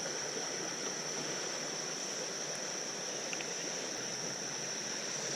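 Steady rush of a high, fast-flowing river, with a constant high-pitched insect chorus over it.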